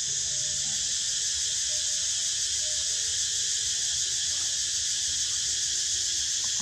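Steady, high-pitched drone of a forest insect chorus, unbroken and even, with a few faint short calls underneath.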